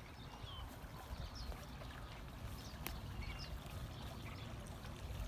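Faint outdoor ambience: a steady low rush with a few short high chirps, and one sharp click about three seconds in.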